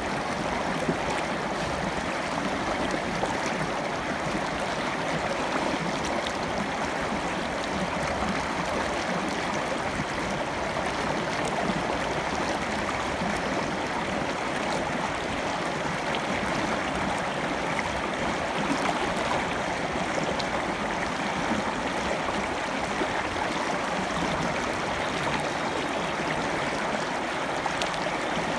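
River water flowing and rushing in a steady, even noise, with no pauses or changes.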